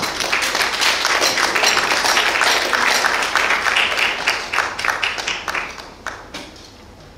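Congregation applauding, a dense patter of many hands clapping that dies away about six seconds in.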